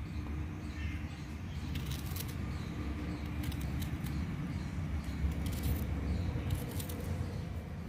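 Small kitchen knife cutting a green capsicum held in the hand, with a few faint crisp clicks of the blade scattered through, over a steady low hum.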